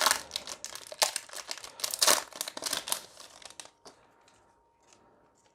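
Plastic foil booster pack wrapper crinkling as it is torn open and handled. Dense crackling for about three and a half seconds, then only a few faint ticks.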